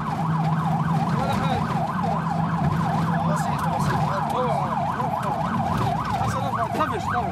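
Ambulance siren in fast yelp mode, its tone sweeping rapidly up and down about five times a second, over the low, steady running of the vehicle's engine.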